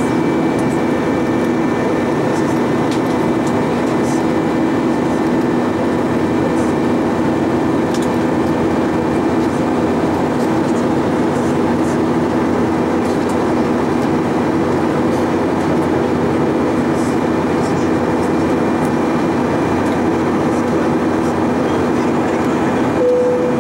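Steady cabin noise of an Airbus A320-232 in cruise: the dense rush of airflow with the steady multi-tone drone of its IAE V2500 turbofans. A short tone sounds near the end.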